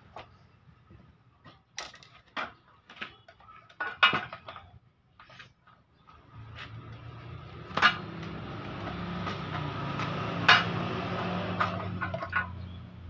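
Metal clinks and knocks as a motorcycle engine is manoeuvred by hand up into its frame, with the sharpest knocks about four, eight and ten and a half seconds in. A steady low hum comes in at about six and a half seconds and runs under the knocks until near the end.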